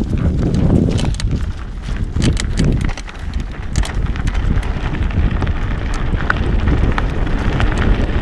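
Wind buffeting the microphone over the rumble of a Trek Stache 5's 29-plus tyres rolling fast on a dirt trail, with frequent clicks and rattles from the bike over bumps.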